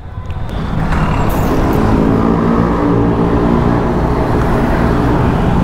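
Motorcycle engine running in traffic at a steady pitch, over road and wind noise that swells during the first second.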